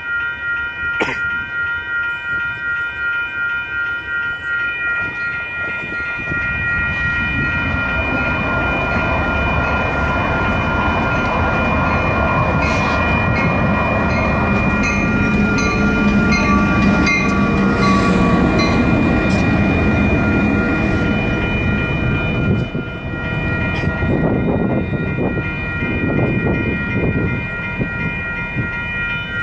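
Electronic grade-crossing bells ringing steadily, pulsing a little under twice a second, with a sharp click about a second in. From about six seconds in, a CAF light rail train rumbles past with a steady hum, loudest in the middle. Near the end, Union Pacific diesel switcher locomotives (a GP38-2 and a GP60) move past the crossing.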